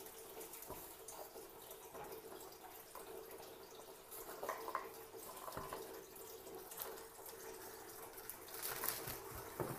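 Faint rustling and small clicks as a small package of essential-oil bottles is handled and pried at, over a steady faint hum.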